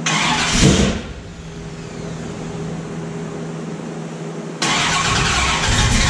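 Freshly built 410 cubic inch stroker small-block Chevy V8 with Holley Sniper EFI, on its first start-up after the build: it catches with a brief rev in the first second, then settles to a quieter run. About four and a half seconds in, the sound jumps abruptly louder and stays there.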